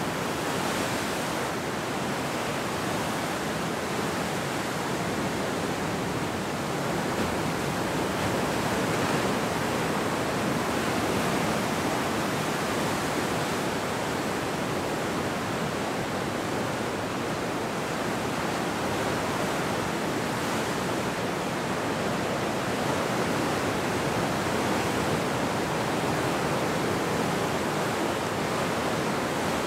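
Ocean surf: waves breaking and washing in as a continuous rush of noise that swells slightly now and then.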